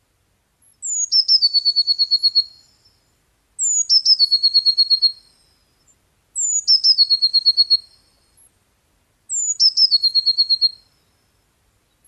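Eurasian blue tit singing: four song phrases about three seconds apart, each opening with high, thin falling notes and running into a fast, even trill.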